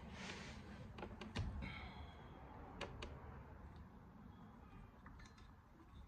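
Faint handling noises: a few light clicks and taps, a soft thump about a second and a half in followed by a short scrape, as a flashlight and a chainsaw engine fitted with a degree wheel are handled.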